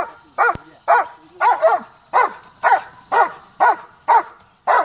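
German Shepherd dog barking steadily and rhythmically at about two barks a second, with one quick double bark about a second and a half in. This is a protection-work hold and bark, the dog guarding and barking at a helper in front of the blind.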